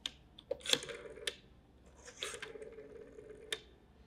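Hand handling the plastic handset of a black rotary desk telephone as it rests in its cradle: several sharp, irregular clicks and knocks, with a faint hum coming and going underneath.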